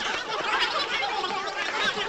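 Many voices talking over one another, with chuckling and laughter among them: a crowd walla sound effect.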